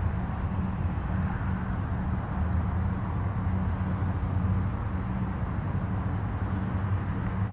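Distant highway traffic: a steady, continuous low rumble and hiss of passing vehicles blending into one wash of sound.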